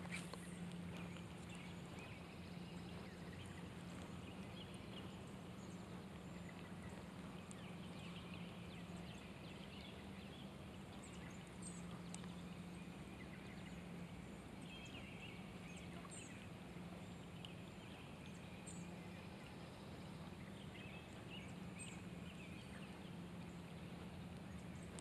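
Faint outdoor ambience in light rain: an even soft hiss of rain with scattered short bird chirps and a low steady hum underneath.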